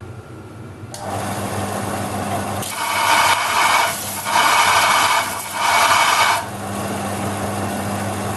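Electric power tool running steadily, with three louder rasping passes of about a second each where it works the metal, trimming off excess.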